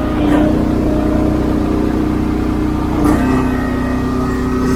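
Engine of a Wolfe Ridge hydraulic log splitter running steadily, its note dipping briefly about a third of a second in and again about three seconds in as the ram is worked through its stroke.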